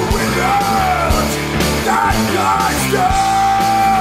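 Rock music with a steady drum beat; a long held melody note comes in about three seconds in.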